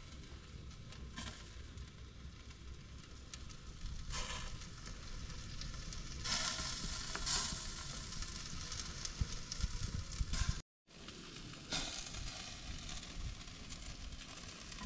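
Jerk chicken sizzling on the grate of an oil-drum jerk pan over an open fire, with scattered crackles as juices drip from the meat onto the fire. The sound drops out for a split second about two-thirds of the way through.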